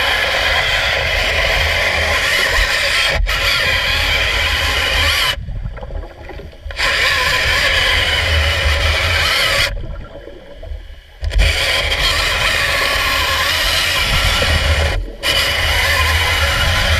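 Stanley CS-06 hydraulic chainsaw cutting a wooden piling underwater, a loud dense cutting noise heard through the water. It stops for about a second and a half twice, about five and ten seconds in, and breaks briefly near the end.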